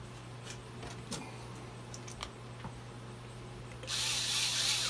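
Handheld power drill-driver running briefly about four seconds in, driving a fastener into the end housing of a trolling motor under reassembly. Before it there are a few light clicks from parts being handled.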